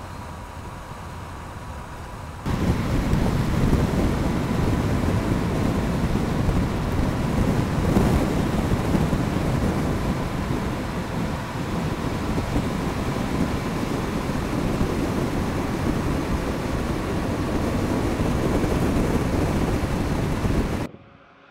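Mercedes-Benz GenH2 fuel-cell truck driving, heard from outside: a steady rumble of tyres on the road mixed with wind noise. It steps up louder about two seconds in and cuts off suddenly just before the end.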